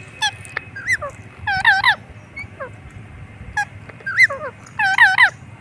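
Indian ringneck parrot calling in short, squeaky, up-and-down chirps, a few single calls and then two quick runs of calls, the loudest near the end.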